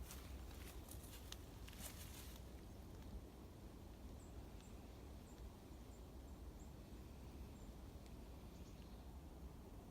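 Faint forest ambience: a few dry rustling crackles in the first couple of seconds, then a small bird giving short, high, thin chirps every half second or so, over a low steady rumble.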